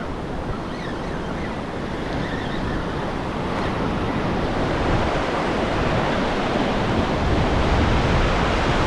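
Ocean surf washing and breaking, growing steadily louder, with wind rumbling on the microphone.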